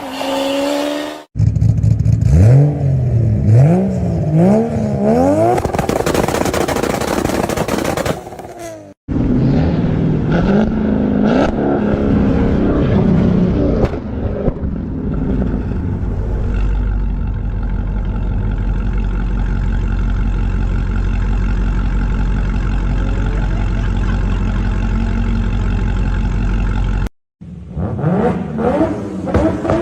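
Car engines being revved in a string of short clips: the engine note climbs and falls again and again, then holds a long steady drone, with abrupt cuts between clips.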